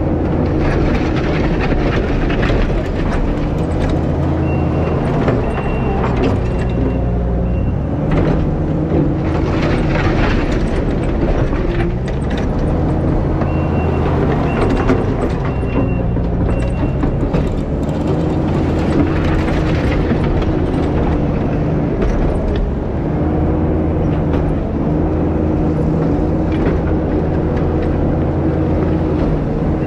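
Diesel engine of a compact earthmoving machine running hard, its pitch rising and falling as the hydraulics take load while pushing dirt. A backup alarm beeps in several runs as the machine reverses.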